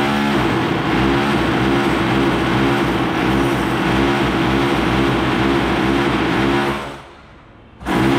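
A loud power tool running with a pulsing rhythm about twice a second, stopping for about a second near the end and then starting up again.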